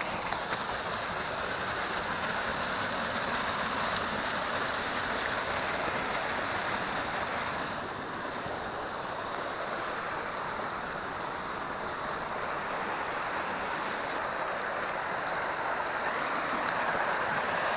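A waterfall on a steep hill burn, its water rushing steadily.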